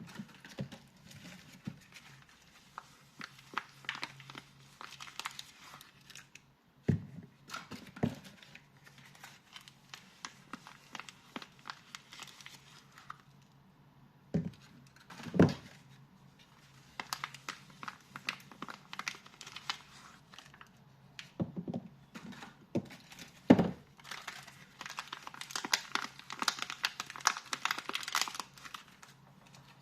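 Soap packaging being unwrapped: stretches of crinkling and tearing wrapper, broken by short pauses, with several soft thumps as items are handled and set down.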